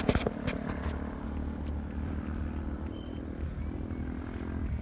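Wind buffeting a phone microphone: a low, uneven rumble, with a couple of sharp knocks right at the start.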